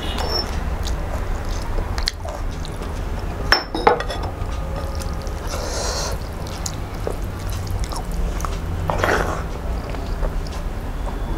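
Close-up eating sounds: chewing mouthfuls of rice and curry, and fingers mixing wet rice with gravy on a plate, with two sharp clicks about three and a half seconds in.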